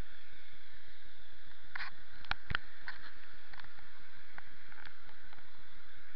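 Steady hiss of outdoor noise picked up by an Eken A8 action camera's built-in microphone, with irregular taps and clicks scattered through it, the loudest few about two seconds in.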